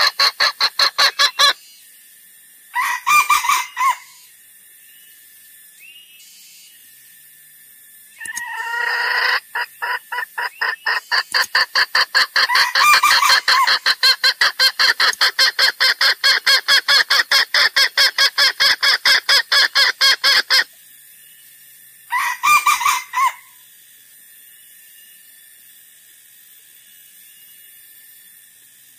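Junglefowl calls from a lure recording: long runs of rapid, evenly repeated clucking, broken by two short pitched calls about 3 s and 22 s in, then a faint steady background for the last few seconds.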